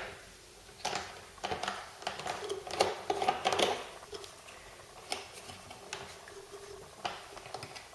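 Plastic clicks, taps and rattles as the filler cap is removed from a Black & Decker FSM1600 steam mop's plastic body. There is an irregular flurry of clicks in the first half, then fainter scattered ticks.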